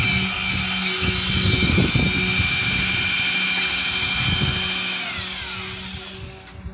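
Electric drill with a paddle mixer running steadily in a bucket, stirring two-part Mapelastic cementitious waterproofing slurry. About five seconds in it is switched off and its whine falls in pitch as the motor winds down.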